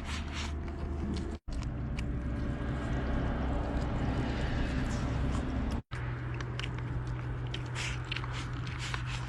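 Close-up chewing and biting of braised beef, a run of short wet clicks and smacks over a steady low hum. The sound drops out abruptly twice, briefly, about a second and a half in and again about six seconds in.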